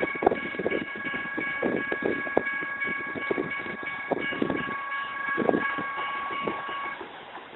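General Signals type 1 electronic railroad crossing bell ringing in a steady, high tone as the gates rise after the train has cleared. The bell cuts off about seven seconds in. Irregular low rumbles and knocks sound underneath.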